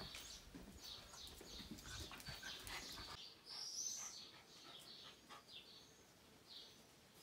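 Faint, short, high-pitched animal calls repeating several times a second, with a few light clicks.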